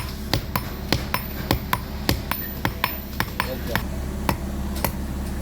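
Small hammer tapping copper sheet on a metal surface: a quick, slightly uneven run of light, sharp strikes, about three to four a second, each with a short ring, over a steady low hum.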